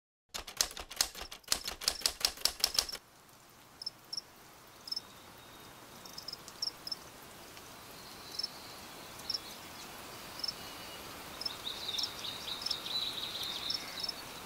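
Typewriter keys clattering rapidly for about three seconds, then stopping. Faint crickets chirping after that, with scattered short high chirps that grow busier near the end.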